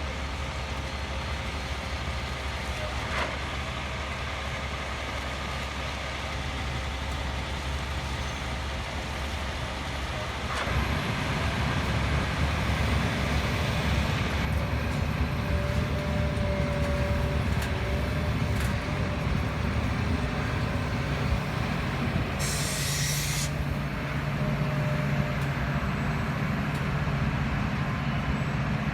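Heavy diesel truck and excavator engines running, getting louder about ten seconds in, with a short sharp hiss of air, like an air brake venting, about two-thirds of the way through.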